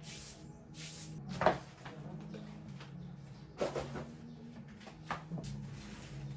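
Household handling sounds: three short knocks and clatters, like things being moved and set down or a cupboard door closing, the first the loudest, over a steady low hum.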